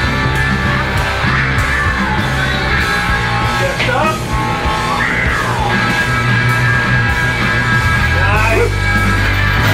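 Loud rock music with a steady drum beat and yelled vocals.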